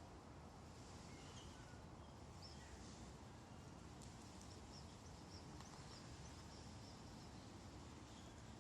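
Near silence: faint steady outdoor background noise with scattered faint, short bird chirps.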